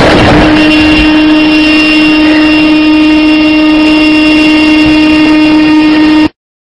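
Car horn sounding as one steady, unbroken tone over a loud rushing hiss just after a head-on collision, cutting off suddenly near the end.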